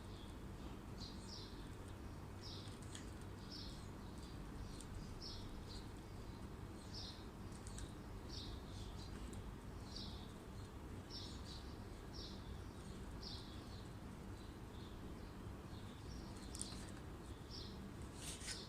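A small bird chirping over and over, short high chirps about once a second, above a steady low background hum. A few faint clicks near the end.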